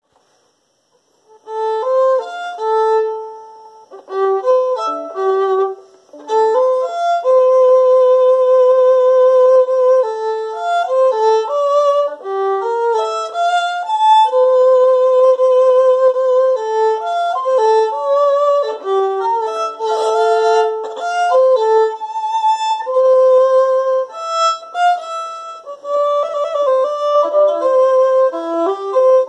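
Solo violin played with the bow: a melody of held notes with vibrato mixed with quicker passages. It begins about a second and a half in, with short breaks near four and six seconds.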